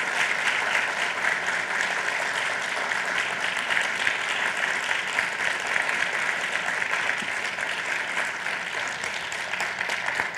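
An audience applauding: dense, steady clapping that eases slightly near the end.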